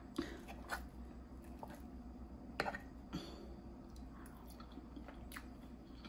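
Quiet chewing of a forkful of breakfast, with a few short clicks of a metal fork, the sharpest about two and a half seconds in.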